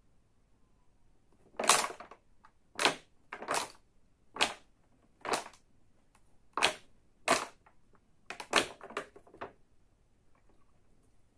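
Capped plastic drink bottle crackling and popping sharply about ten times as it is squeezed and released by hand: the pumping that makes a cloud form and clear inside it.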